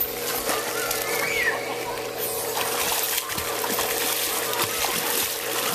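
Water splashing as a child swims, arms and legs churning the surface in quick, uneven splashes.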